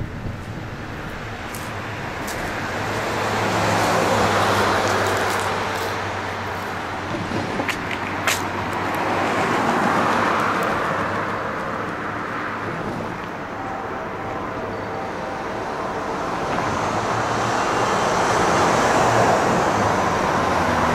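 Road traffic: cars driving past one after another, each swelling and fading as it passes, over a steady low hum.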